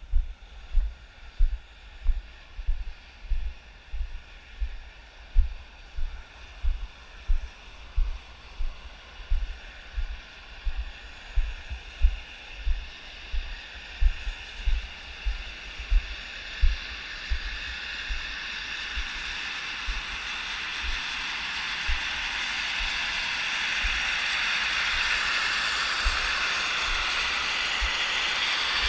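Steam hissing from a fumarole, growing steadily louder through the second half as the vent comes closer. Earlier, low regular thumps about one and a half times a second from footsteps jolting the camera.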